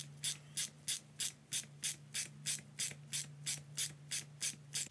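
Small ratchet wrench clicking in a steady rhythm of about three strokes a second as it turns a chain breaker's press screw, pushing the pin out of a 520 motorcycle chain link.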